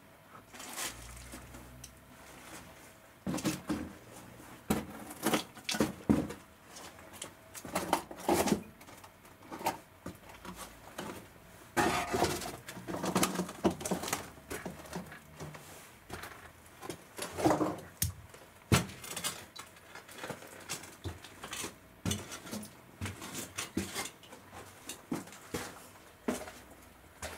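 Footsteps crunching and scraping over rubble and grit on a cellar floor: irregular knocks and crunches, with a longer stretch of scraping about twelve seconds in.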